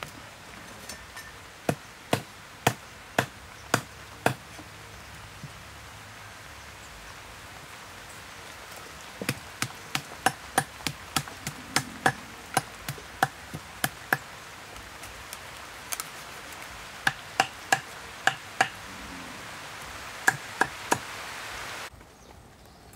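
Cleaver chopping through a large fish on a wooden chopping block: sharp strikes in several runs, about two a second.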